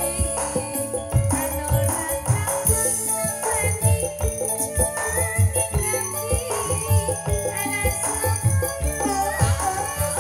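Live campursari music: a Javanese gamelan ensemble with an electronic keyboard, playing over a steady drum beat.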